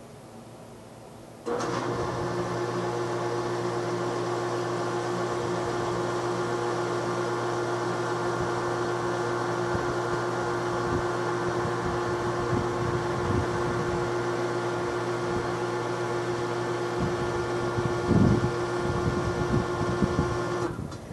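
A steady mechanical hum, like a fan or motor running, switches on abruptly about a second and a half in and cuts off suddenly near the end, with a few low bumps shortly before it stops.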